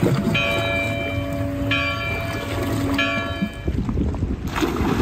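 Church bell tolling: three strikes about 1.3 seconds apart, each ringing on until the next, stopping about three and a half seconds in. A rushing noise follows near the end.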